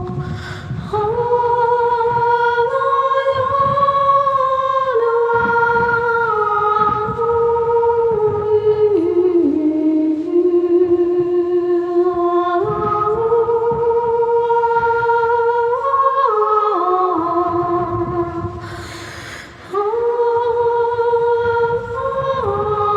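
Wordless vocal singing: long held tones that step up and down in pitch, sung without lyrics. About three-quarters of the way through the tones break off briefly with a breathy hiss before the singing resumes.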